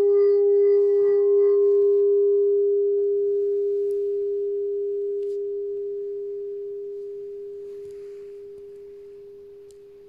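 White quartz crystal singing bowl, tuned to the crown chakra, ringing with one steady pure tone that slowly fades away; its higher overtones die out within the first two seconds.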